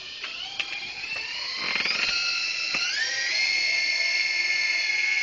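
Traxxas Slash RC truck's motor and drivetrain whining at high speed. The pitch climbs in two steps as it speeds up, then holds steady and high.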